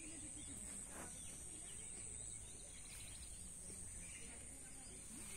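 Quiet outdoor ambience: a low rumble under a steady high-pitched hiss, with a faint short sound about a second in.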